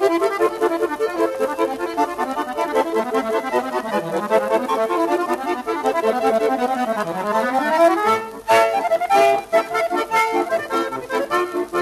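Accordion music playing quick runs of notes, with a run sliding down and back up in the middle and a short break with a sharp accent about two-thirds of the way through.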